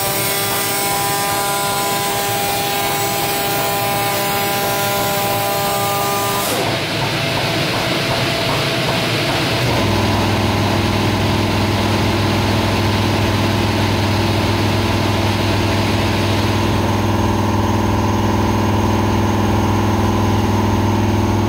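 Zünd G3 3XL-3200 digital flatbed cutter running. A steady whine of several tones starts with a short rise and stops about six seconds in. From about ten seconds in, a louder, steady low hum takes over.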